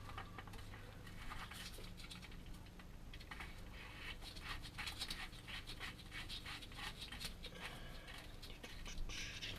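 Faint, irregular small clicks and scrapes of a steel drain plug with a new crush washer being lined up and threaded into the casing by hand.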